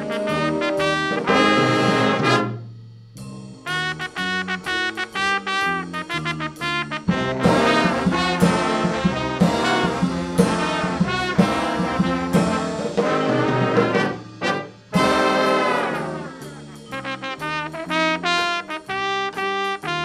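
A school jazz big band playing: trumpets, trombones and saxophones over drums, guitar and bass, in punchy ensemble brass hits. The band drops out briefly about three seconds in and again about fourteen seconds in.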